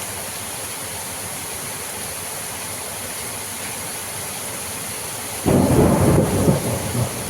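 Steady hiss of rain and wind in pine trees, then about five seconds in a sudden strong gust of wind rushes in, rumbling and buffeting the microphone unevenly.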